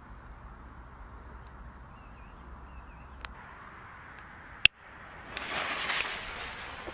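A single sharp click, then the lit fuse of a firework rocket hissing steadily for the last second and a half.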